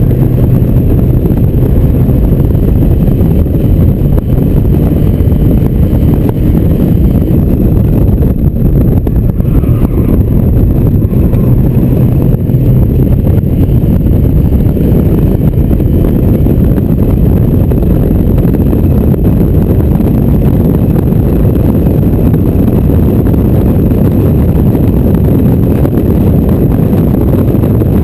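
Open-top Mazda MX-5 at speed: loud, steady wind buffeting on the microphone, with the car's engine and road noise running underneath.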